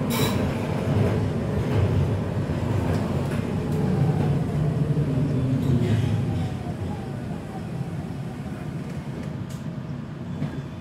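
Inside a Breda VLC tram in motion: steady low rumble of wheels and running gear with a sharp knock at the start. A faint motor whine falls in pitch through the middle, and the noise drops after about six seconds as the tram slows.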